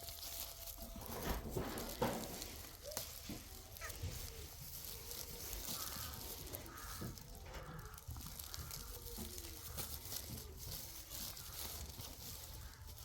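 Faint bleating of a goat and sheep flock, mixed with scattered rustling and light knocks.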